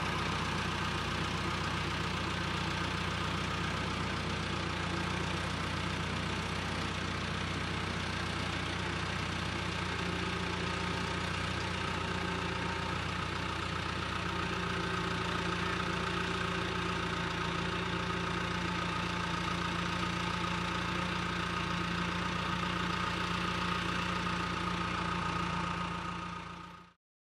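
An engine running steadily at an even speed, a low hum that fades out near the end.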